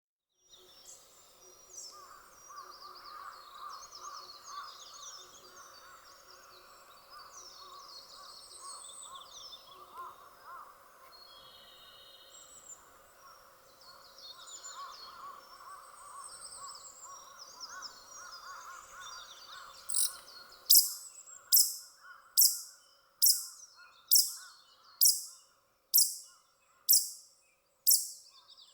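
A male Ezo pika (northern pika) gives a long series of about eleven sharp, high-pitched calls, a little over one a second, starting about twenty seconds in. The first call is weaker and unlike the rest, and the series may be a breeding-season call. Before the calls, small birds chirp softly.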